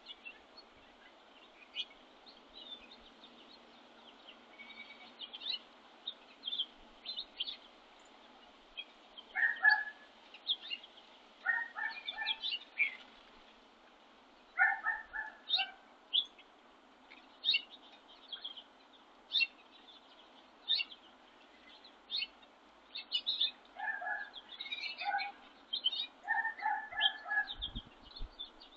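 Wild birds calling at a winter feeder: many short, high chirps throughout, joined from about a third of the way in by a lower, fuller call repeated in short groups.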